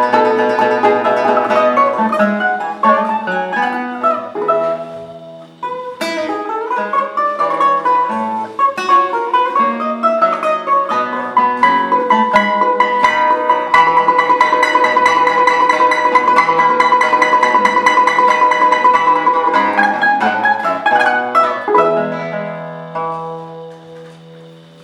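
Balalaika and guitar duet playing a Baroque harpsichord piece arranged for plucked strings. Quick plucked runs give way, about halfway through, to a long stretch of one note rapidly repeated, imitating a ringing alarm clock. Closing chords then die away near the end.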